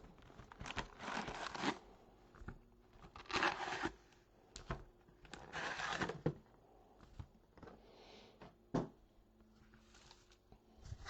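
Packaging of a box of baseball trading cards being torn open and crinkled: three rasping tears about a second in, three and a half seconds in and six seconds in, with a few sharp clicks and rustles in between.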